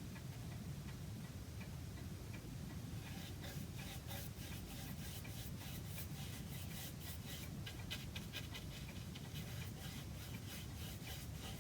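Faint, irregular small ticks and light rubbing over a low steady hum.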